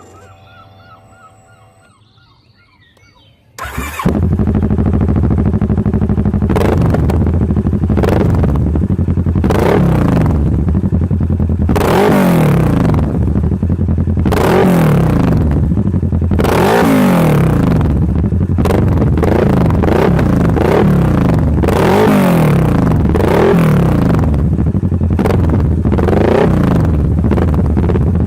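2010 Kawasaki ER6N's parallel-twin engine running through a Blackwidow 200 mm end can with its baffle removed. It starts about three and a half seconds in, then idles and is revved in short throttle blips about every two seconds.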